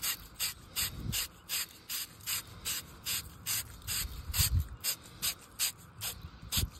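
Wire bristles of a pipe-cleaning brush scouring the outside end of a copper pipe, twisted back and forth in quick, even strokes, about three scratchy rasps a second. A couple of duller bumps come about a second in and past the middle.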